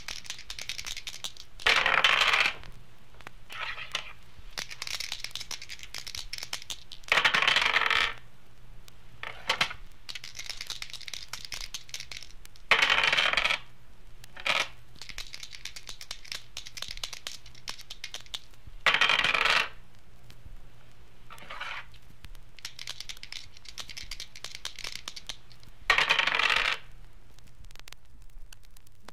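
Dice rattled and thrown onto a hard surface, five loud clattering throws about every five or six seconds, with lighter clicks and short rattles between.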